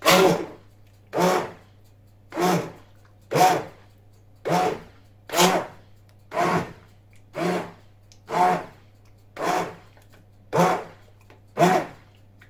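Hand blender pulsed in short bursts, about a dozen of them roughly one a second, through a pot of cooked tomato and pepper sauce. The pulses are kept brief so the sauce is only partly puréed and stays slightly chunky.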